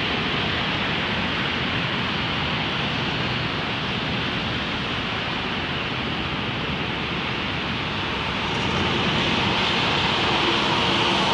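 Steady wash of distant city traffic noise carrying into an open-sided concrete parking garage. It swells about two-thirds of the way through, and a low hum comes in near the end as a vehicle approaches.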